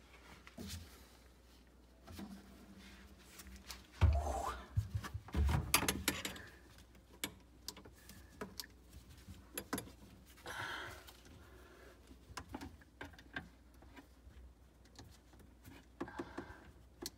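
Clicks, knocks and scraping of a screwdriver and gloved hands working on an InSinkErator garbage disposal and its plastic drain fittings, with two louder thumps about four and five and a half seconds in.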